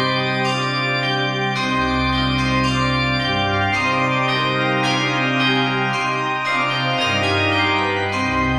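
Organ playing slow sustained chords, its deep bass notes moving to a new pitch every second or two.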